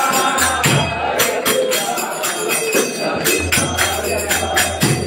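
Devotional kirtan music: small hand cymbals (karatals) struck in a quick, steady rhythm over singing.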